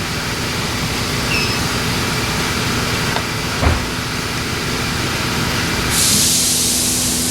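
Steady mechanical hum, broken by a single sharp knock about halfway through and a loud hiss that starts near the end.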